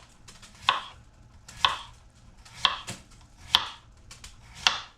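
A kitchen knife slicing a cucumber into rounds on a cutting board: five even strokes about a second apart, each ending in a sharp knock of the blade on the board.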